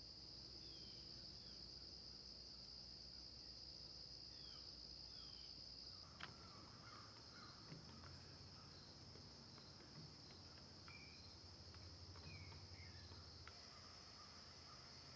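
Faint, steady high-pitched insect chorus from the woods. Scattered short falling bird chirps and a few faint clicks sit over it.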